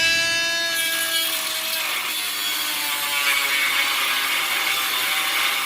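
Milwaukee M12 angle die grinder running at speed with a high-pitched whine, then grinding against a workpiece from about a second in, a rough hiss over the whine that dips slightly in pitch under load.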